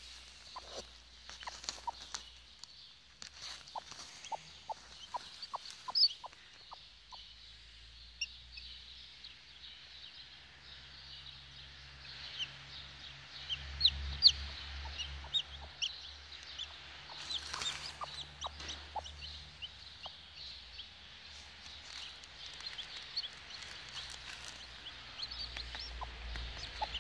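Newly hatched chicks peeping in short, high cheeps, with a broody hen clucking low, a run of about two clucks a second in the first several seconds. A few sharp knocks and rustles of the nest being handled sound in between.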